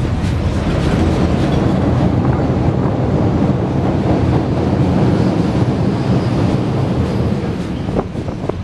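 Steam-hauled train running, heard from the locomotive's tender: a steady low rumble of wheels on rail with some clatter as it crosses a bridge over water, and a few sharp clicks near the end.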